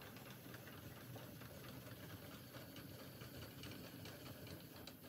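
Faint, rapid mechanical clicking from a Bridgeport milling machine's table being cranked along by hand.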